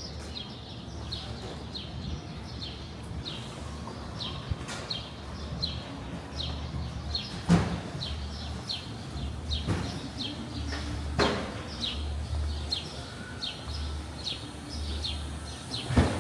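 A small bird chirping over and over, about two short, high, downward-sliding chirps a second, above a low city-street rumble with a few sharp knocks.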